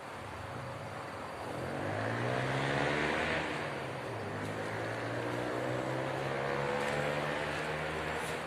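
Long-reach excavator's diesel engine running, its pitch rising about two seconds in as it revs up, then holding steady.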